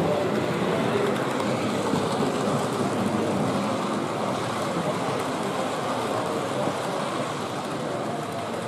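Steady background din of a busy exhibition hall, a murmur of many voices, mixed with the running of a model train along its track.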